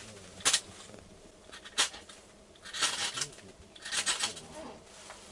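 Ferrocerium fire steel struck with a scraper to throw sparks and light a fire: four sharp scraping rasps, the last two longer. The fire steel works and the flame catches.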